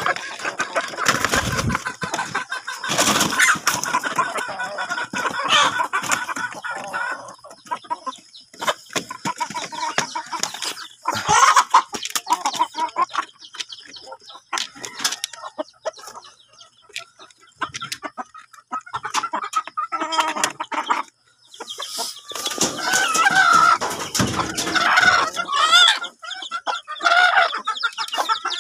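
Chickens clucking, busiest in the first several seconds and again near the end, with sparser calls in between.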